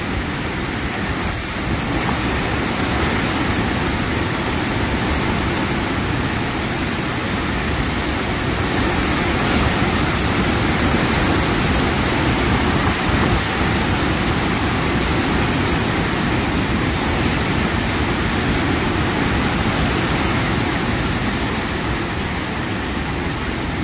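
Heavy rain and strong wind of a thunderstorm: a steady rush of rain with gusts thrashing the trees and buffeting the microphone, swelling a little in the middle.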